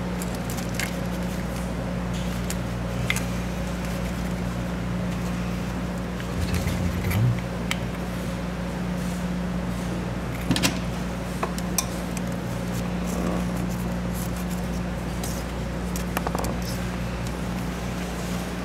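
Scattered small clicks and knocks of hands working plastic connectors, clips and hoses in a car's engine bay, over a steady low hum.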